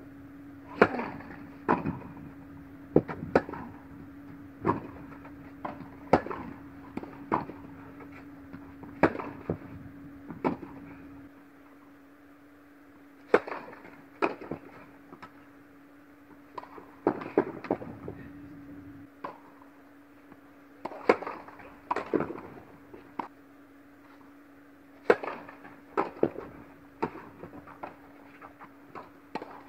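Tennis rallies in an indoor hall: sharp pops of racket strikes on the ball and ball bounces, about one a second, in runs broken by a short pause partway through, over a steady low hum.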